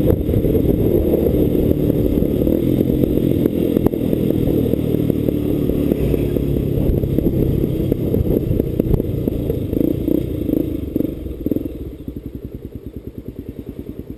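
Motorcycle engine running under way, then easing off about two seconds before the end and settling into a steady idle with an even pulsing beat.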